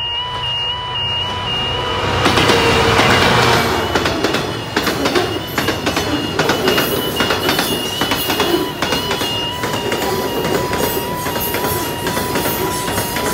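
Class 66 diesel locomotive hauling a freight train of covered steel-coil wagons passes over an automatic half-barrier level crossing. The locomotive is loudest about two seconds in, followed by the wagons' wheels clattering rapidly over the rail joints and crossing. The crossing's slow, warbling alarm sounds beneath it.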